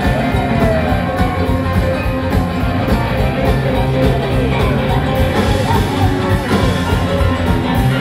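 Live blues-rock band playing: electric guitars, drum kit and keyboard together in a loud, continuous mix.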